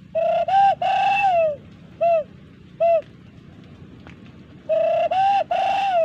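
Dove cooing, loud and close: a three-note phrase ending in a long falling coo, then two short single coos, and the same phrase again near the end.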